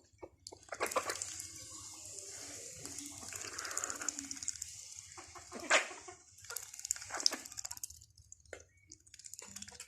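Ducks splashing and dabbling in shallow water, with irregular wet splashes and sloshing.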